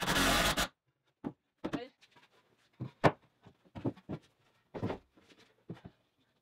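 Craftsman V20 cordless drill driving a pocket-hole screw in a short burst, then a string of wooden knocks and taps as plywood panels are handled, the loudest about three seconds in.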